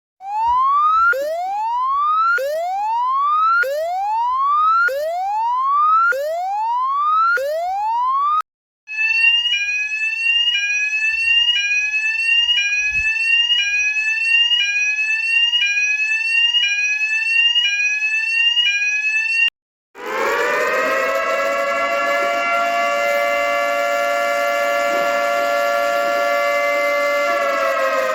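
Three different alarm sirens in turn, split by short gaps. First comes a whoop repeating about every second and a quarter, each one sliding upward. Then about ten seconds of a fast repeating pattern of short rising beeps at two pitches, and last a siren winding up to a steady chord-like wail that starts to wind down near the end.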